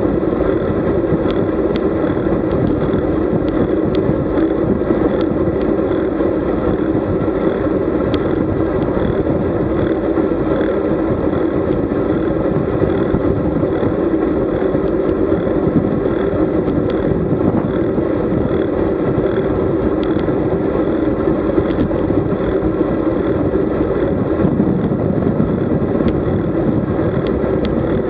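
Steady rush of wind and road noise on the microphone of a camera riding along on a road bicycle, with no change through the stretch.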